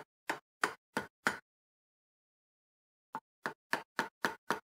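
Hammer tapping on a white block held on the end of a driveshaft, driving the CV joint down onto the shaft. Five evenly spaced taps come about three a second, then after a pause of about two seconds a quicker run of six taps.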